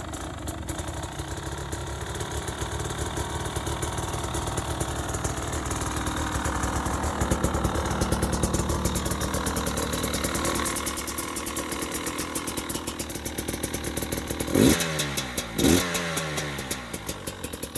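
2020 KTM 300 XC TPI's single-cylinder two-stroke engine idling fast while it warms up with the choke pulled out. Near the end the throttle is blipped twice, each time the revs dropping back down.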